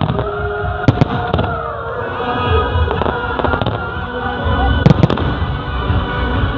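Fireworks display: shells bursting with sharp bangs about a second in and again near five seconds, over a continuous crackle of smaller bursts, with music playing underneath.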